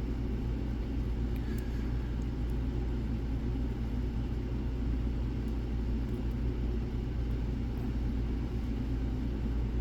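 Steady low rumble and hum, with a couple of faint clicks about a second and a half in from a pick working the pins of a pin-tumbler lock.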